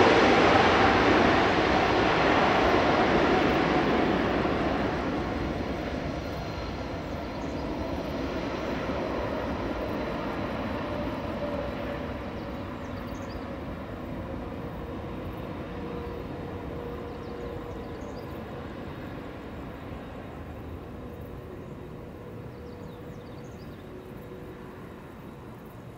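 Jet engines of a Boeing 767-300 freighter rolling out after landing. The engine rush is loud at first and fades steadily as the aircraft moves away, leaving a faint steady whine.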